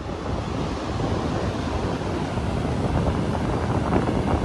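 Wind buffeting the microphone over waves washing onto a sandy beach, a steady rushing noise.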